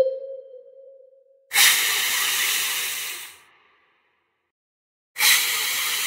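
Two bursts of loud hissing, each starting abruptly and trailing off over about two seconds, with a silent gap of nearly two seconds between them. Before the first, a steady tone fades away during the first second or so.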